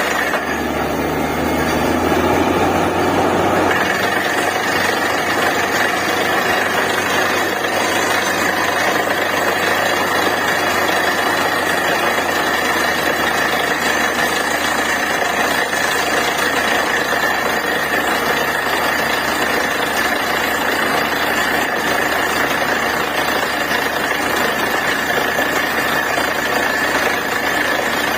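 Borewell drilling rig running steadily, a loud continuous machine noise with a rattling edge. Its low hum drops away about four seconds in.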